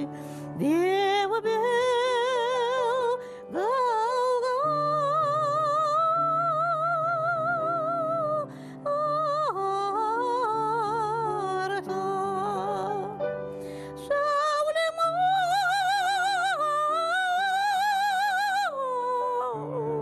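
A female operatic voice singing long held high notes with wide vibrato, in several phrases with brief breaks between them, over piano accompaniment.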